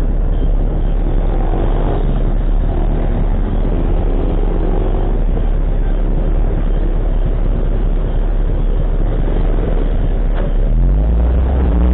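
A vehicle engine running on the move, under a heavy steady wind rumble on the microphone. About ten seconds in, the engine note rises as it accelerates.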